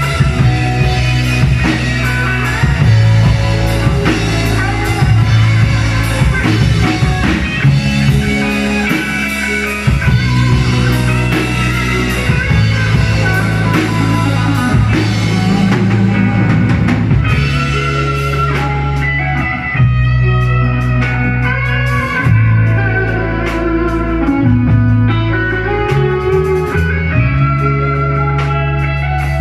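Rock band playing: electric guitar over a drum kit, with held low bass notes that change every few seconds.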